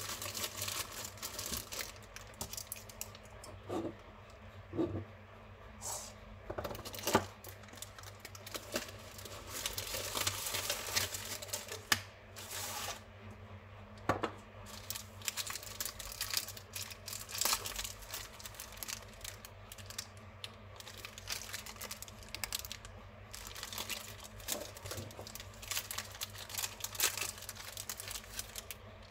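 Rustling and crinkling of Lemona vitamin C powder sachet wrappers being handled, with a wrapper torn open and irregular small clicks and taps, over a steady low hum.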